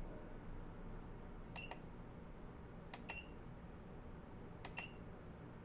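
Faint clicks of the front-panel push buttons on a 948 III soldering and desoldering station being pressed while scrolling its settings menu with the key beep turned off: one click, then two quick double clicks, about a second and a half apart.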